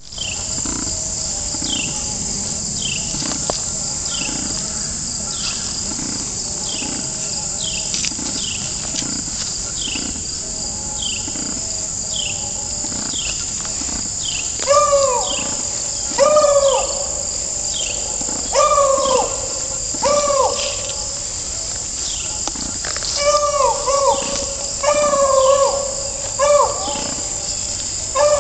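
Beagle baying in the background: a string of short howling bays that rise and fall in pitch, about one every second or two, starting about halfway through. Under it, a steady high drone of insects and a high chirp repeating about once a second.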